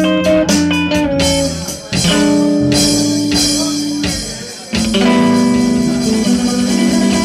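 Live rock band of electric guitar and bass over drums, playing through small amps. Quick, even beats in the first second give way to several chords struck and left to ring.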